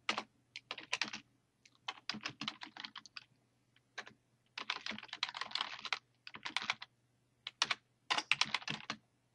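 Typing on a computer keyboard: runs of quick key clicks broken by short pauses.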